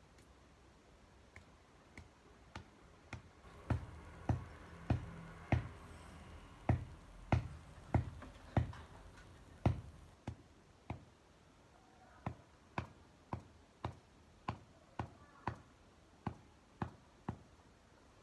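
A long-handled garden tool striking the soil of a vegetable bed in a steady rhythm, a little under two strokes a second. The middle strokes land as heavier thuds. After a short pause the strokes go on as lighter ticks.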